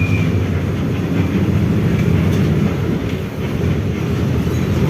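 Volkswagen 17-230 OD bus underway: a steady, loud drone with low humming tones, its differential growling loudly.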